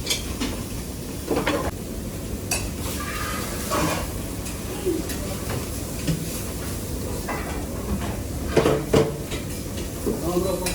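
Kitchen clatter: pots, pans and metal utensils knocking and scraping at irregular intervals over a steady low hum. The busiest knocks come about nine seconds in.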